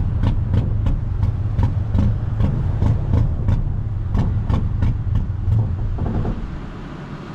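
A car engine running with a steady low rumble, with a quick regular run of sharp clicks about three to four a second. It fades away toward the end.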